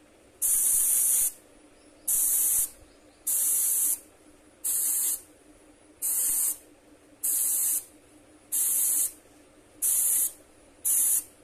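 Airbrush spraying paint in short bursts of hiss, nine in all, each under a second long and about one every second and a quarter.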